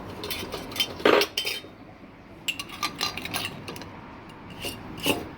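Kitchen utensils and cookware clinking and clattering in a series of short knocks, the loudest about a second in and a quick run of clinks in the middle.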